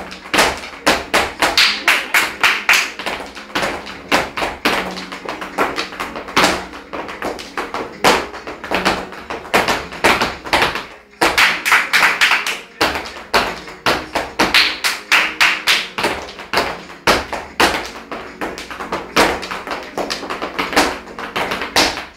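Flamenco dancers' rhythmic hand claps and heel taps on a hard floor, a fast, steady run of sharp cracks over faint flamenco music.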